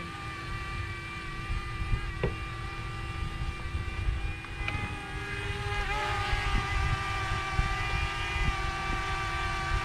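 DJI Mini drone's propellers whining steadily as it is brought in to land, the pitch dipping slightly and settling about six seconds in, over a low rumble.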